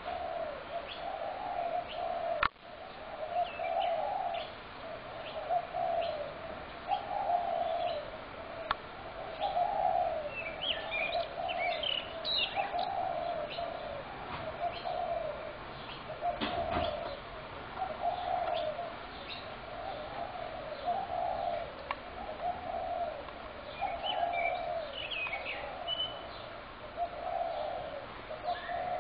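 Spotted doves cooing over and over, one phrase after another about every second, with smaller birds chirping above them at times. A sharp click about two and a half seconds in.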